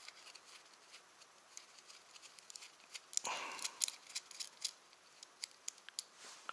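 Light clicks and ticks, with a brief rustle about three seconds in.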